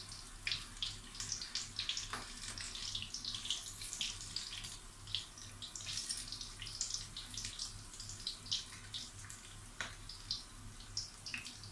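Battered shallot pakoras deep-frying in hot oil in a wok: a continuous crackling sizzle with a couple of sharper pops.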